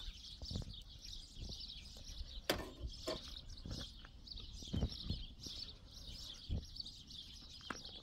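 Small birds chirping continuously, with a few short knocks and thumps here and there.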